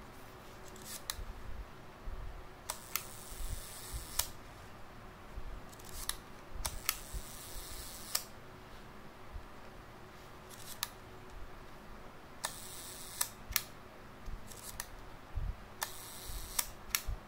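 Mechanism of a Yashicaflex C twin-lens reflex camera with a Copal leaf shutter being worked by hand: sharp mechanical clicks, with a short rasping whir of a second or so before several of them, repeated about four times.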